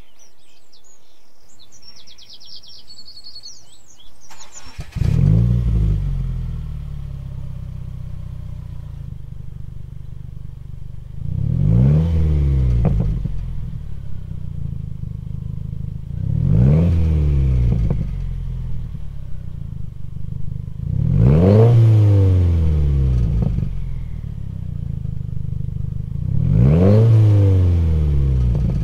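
Birds chirp at first. About five seconds in, a Subaru WRX's 2.0-litre turbocharged flat-four comes in sharply through a Tomei cat-back exhaust, flares and settles to idle. It is then free-revved four times, each rev rising and falling back to idle, the later ones to about 4,000 rpm.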